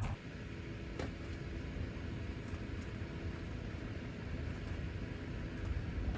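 A vehicle running with a steady low rumble and a faint hum.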